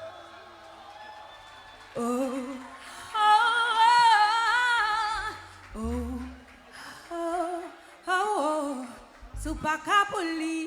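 Live vocalist singing long held notes with a strong vibrato, then shorter sung phrases, with a couple of deep bass notes underneath.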